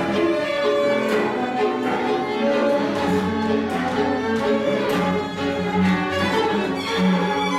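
Live string ensemble playing: several violins over a cello in steady held notes, with a low bass line coming in about three seconds in.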